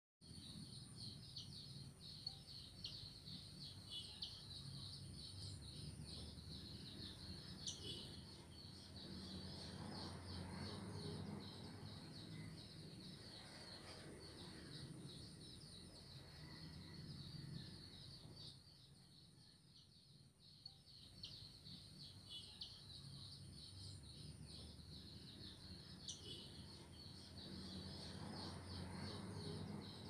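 Faint garden ambience: a steady, rapidly pulsing high insect drone with a thin continuous whine above it, low background rumble, and a few short bird chirps. It all dips for a couple of seconds about two-thirds of the way through.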